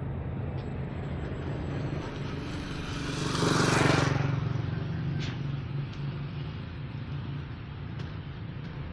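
A motor vehicle passing close by: its noise swells to a peak about three and a half seconds in, then fades, over a steady low engine hum.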